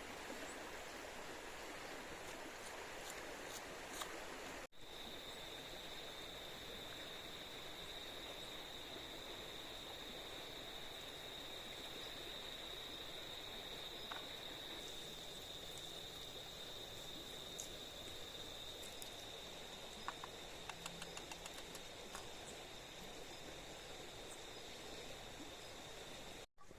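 River water flowing steadily. After a short break about five seconds in, a steady high-pitched insect drone joins it, with a few light clicks near the end.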